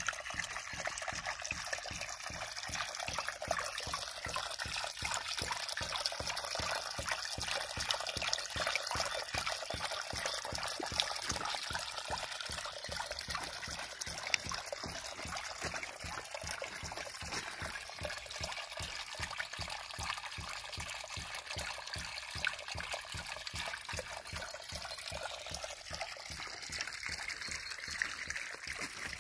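Green & Carter Vulcan hydraulic ram pump running: water splashing out of its waste valve, with a quick, steady rhythm of knocks as the valve snaps shut on each pumping cycle.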